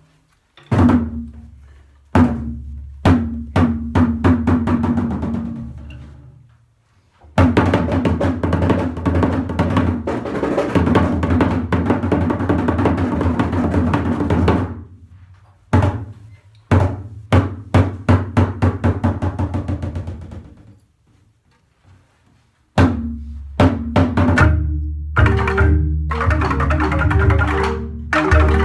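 Gamelan jegog, a Balinese ensemble of large bamboo-tube instruments struck with mallets, playing a piece with deep bass tones. It opens with a few single strokes that ring and die away. A dense fast passage follows and breaks off about halfway, then come more spaced accented strokes, a short pause, and dense playing again near the end.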